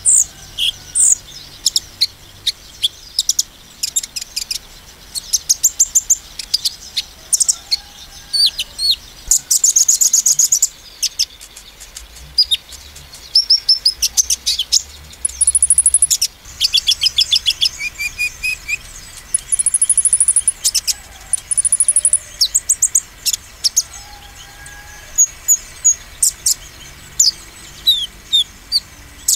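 Male van Hasselt's sunbird (konin) singing hard: repeated bursts of rapid, high-pitched twittering trills and sharp chirps, the excited song used to provoke rival konin.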